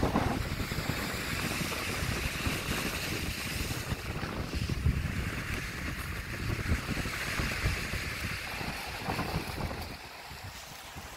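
Wind buffeting the microphone in a gusty low rumble, over a steady wash of small waves breaking on a rocky shore. The sound drops a little near the end.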